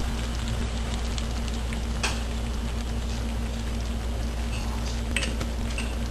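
Diced chicken sizzling in a wok, with stir-fry sauce just poured over it, over a steady low hum. There are a couple of sharp clicks, about two seconds in and again about five seconds in.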